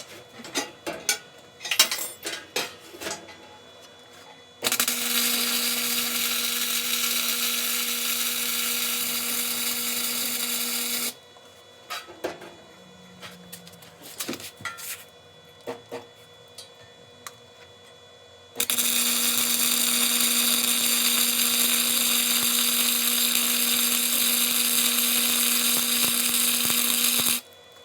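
Arc welding a bead onto steel: two long runs of steady crackling hiss with a low hum, the first about five seconds in and the second starting past the middle, with sharp clicks and metal knocks in between.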